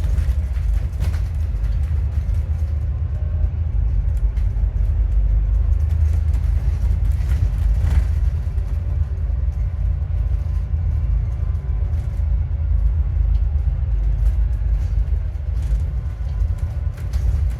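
Alexander Dennis Enviro400MMC double-decker bus heard from inside while on the move: a steady low engine and road rumble, with a faint steady whine over it that the title blames on a bad alternator.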